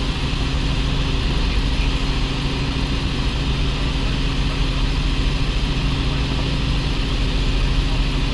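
Light helicopter in cruise flight heard from inside the cabin: a steady drone of engine and main rotor with rushing airflow noise over it.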